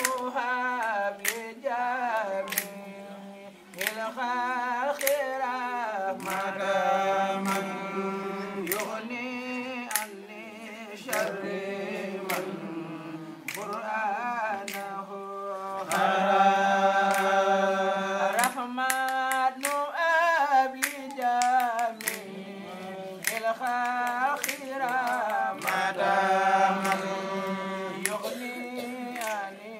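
Unaccompanied religious chanting of an Arabic devotional poem (qasida): a voice holding long, wavering notes in phrases with short breaks. Frequent sharp clicks are scattered through it.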